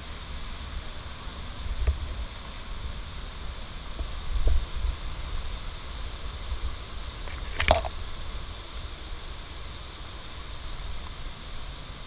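Steady rushing hiss of a waterfall, with a few short bumps and rustles against the microphone, the loudest about four and a half and seven and a half seconds in.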